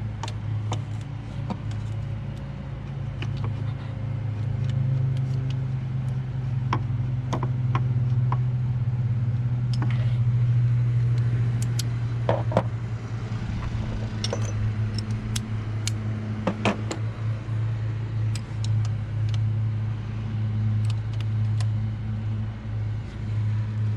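Hand tools clicking and knocking against metal while 10mm bolts on a thermostat housing are worked loose, over a steady low hum.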